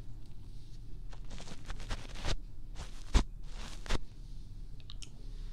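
Fingers brushing and rubbing against the ear pads of a binaural microphone, heard as a few soft swishes, with one sharp thump a little after three seconds in and light clicks near the end, over a steady low hum.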